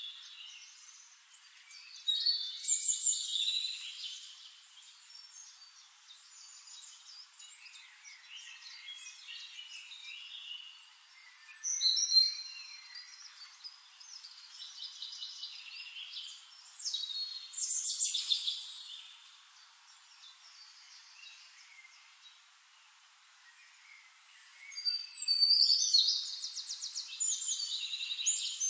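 Birds singing: bursts of quick chirps and whistled phrases every few seconds, ending in a long rapid trill.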